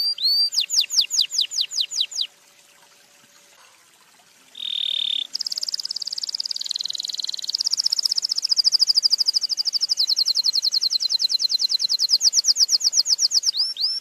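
Domestic canary singing. Repeated down-slurred whistled notes run into a quick trill, then the song stops for about two seconds. It picks up again with a short steady whistle and then a long, very rapid rolling trill that lasts most of the rest.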